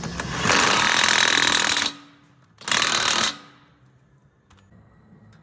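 Impact wrench running in two bursts, a longer one of about a second and a half and then a short one, tightening the CV axle nut on a Honda Civic.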